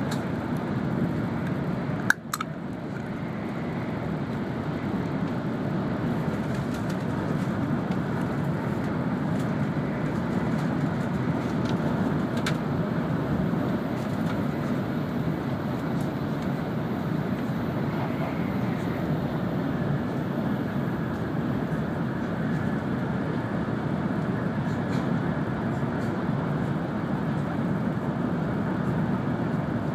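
Steady rumble and rush of an N700 series Shinkansen running at speed, heard inside the passenger cabin. One sharp knock comes about two seconds in, followed by a brief dip in the noise.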